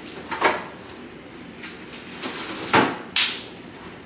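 Several sharp knocks and thuds of kitchen storage being opened and shut and things set down while groceries, including celery, are put away; the loudest bangs come close together near the end.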